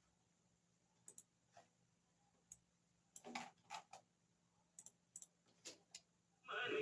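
Faint, irregular clicks and taps, about a dozen scattered through the quiet, some in quick pairs. Loud music with singing starts near the end.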